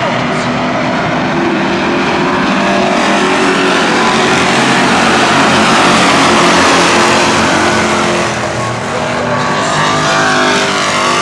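A pack of stock car engines racing past at speed, many engines running together. The sound builds to its loudest about six seconds in, then drops off around eight and a half seconds as the pack heads into the turn.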